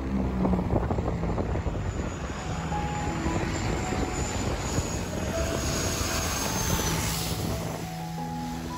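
Twin-engine propeller plane on a low landing approach, flying overhead. Its engine noise carries a high whine that falls gradually in pitch and drops away near the end as the plane passes.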